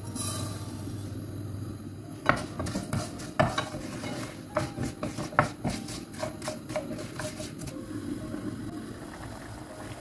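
Metal spoon stirring in a cooking pot, clinking against its sides again and again for several seconds, over a low steady hum.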